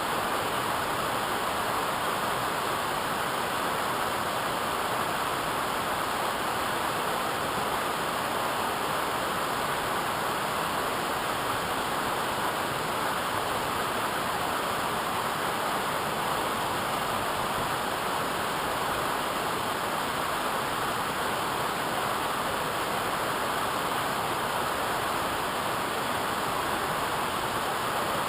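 Waterfall rushing steadily, a constant even roar of falling water with no breaks.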